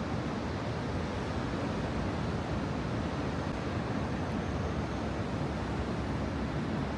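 Steady city street ambience: a continuous low rumble of traffic with no distinct events standing out.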